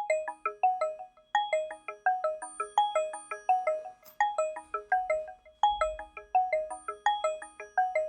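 HTC DROID Incredible 4G LTE ringtone: a quick melody of short, quickly decaying notes, played in repeating phrases that start abruptly.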